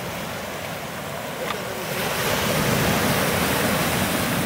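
Sea waves breaking and washing over a beach of large stones, the surge growing louder about two seconds in.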